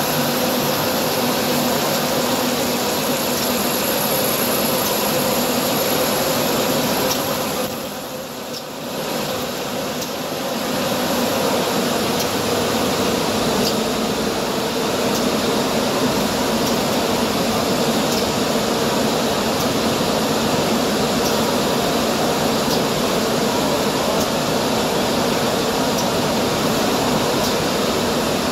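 Tissue-roll packaging line running: a steady machine hum and hiss from the conveyor and the film-wrapping machine, with a faint high whine over the first several seconds and a few light clicks. The noise dips briefly about eight seconds in.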